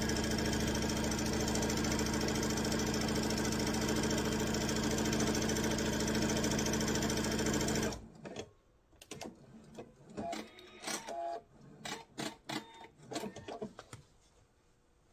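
Electric sewing machine stitching a quarter-inch seam at a steady speed while quilt pieces are chain-pieced through it, stopping abruptly about eight seconds in. After it come scattered light clicks and rustles as the sewn fabric is handled.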